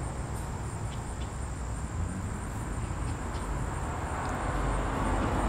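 Outdoor ambience: a steady low rumble with a constant thin high-pitched whine over it, growing slightly louder near the end.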